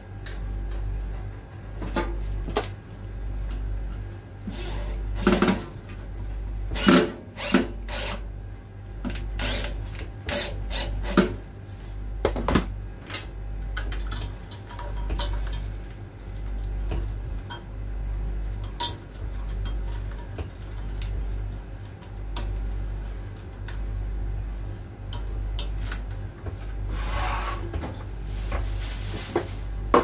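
Irregular clicks, knocks and rustles of wire connectors and harness being handled and pushed onto terminals inside an opened microwave oven, with a longer scraping sound near the end as the oven is turned on the bench. A low, evenly pulsing background beat runs underneath.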